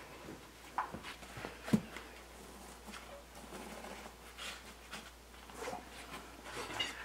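Faint rustling and soft scattered knocks of hand-working wet concrete in a countertop form, a rubber-gloved hand smoothing the surface around the rebar. One sharper knock comes a little under two seconds in.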